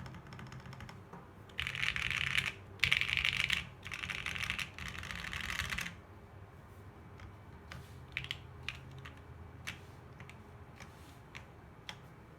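Bear 65 Ergo custom mechanical keyboard, with a polycarbonate case and plate, lubed Seal linear switches and GeekArk keycaps, being typed on fast in four dense bursts. After about six seconds it drops to single keystrokes pressed one at a time.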